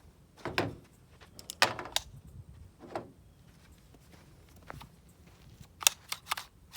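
Metal clicks and clacks of a magazine being swapped in a Cobray M-11/9 pistol, about five or six separate sharp knocks of the gun and magazine being handled.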